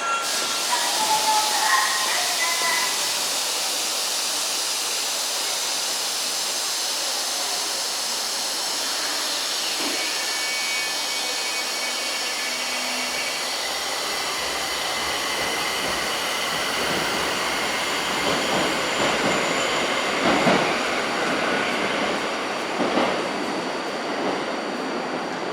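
Tokyo Metro 1000 series subway train pulling out of the platform: a steady rush of running noise, with a whining tone about ten seconds in. Knocks from the wheels run through the last third.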